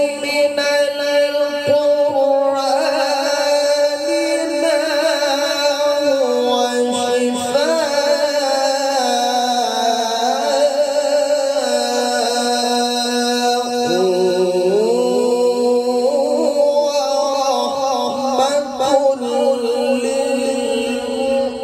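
A man chanting solo into a microphone in a melismatic Quran-recitation style. He holds long notes and winds the pitch up and down in ornamented turns, amplified through a sound system.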